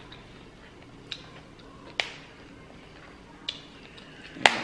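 Cooked shellfish shell being cracked and pried apart by hand: four sharp cracks, roughly a second apart, the last near the end the loudest.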